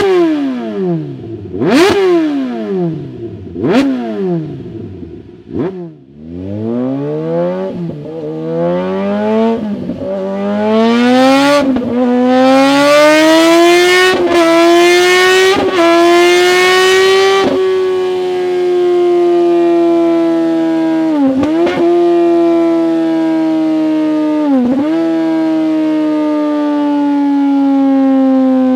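Kawasaki Z H2's supercharged inline-four running through an SC-Project CR-T titanium/carbon slip-on muffler. It is revved in four sharp blips, then climbs through rising revs broken by several brief dips, then holds a steady, slowly falling note with two short dips.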